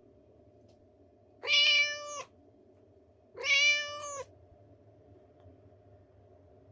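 Persian cat meowing twice, each meow under a second long at a steady pitch, the second about two seconds after the first.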